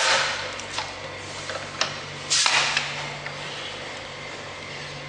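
Metal handling sounds as an annular cutter in its arbor is fitted into a magnetic drill's spindle: a rustle, a few sharp clicks, and a louder scrape about two and a half seconds in, over a steady low hum.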